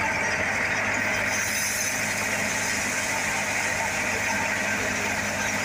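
Wheat thresher running steadily as sheaves of cut wheat are fed into it: a constant low machine hum under an even rushing noise.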